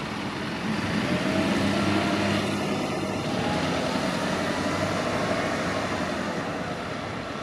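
Isuzu Erga city bus pulling away: its engine running steadily with a faint whine, growing louder about a second in.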